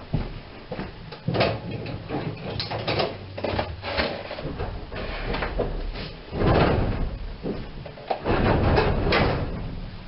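Irregular knocks and clatter mixed with rustling, inside a stationary tram car, with longer rustling stretches about six and a half and eight and a half seconds in.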